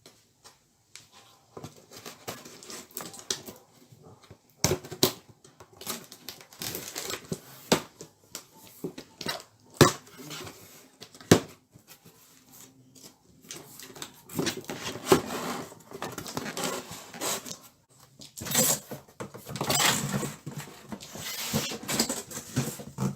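A vacuum cleaner's box being unpacked: irregular handling noise from cardboard and packaging, with several sharp knocks as parts are lifted out, and busier stretches of handling in the second half.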